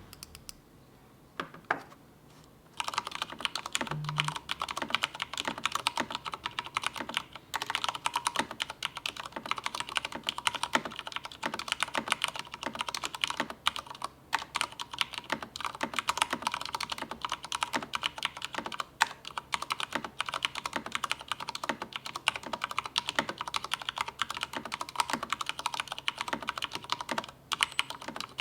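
Fast, steady typing on a Drop CTRL mechanical keyboard with Cherry MX Brown switches lubed with Krytox 205g0, a dense run of key clacks. A few lone keystrokes come first, and continuous typing starts about three seconds in, with short pauses.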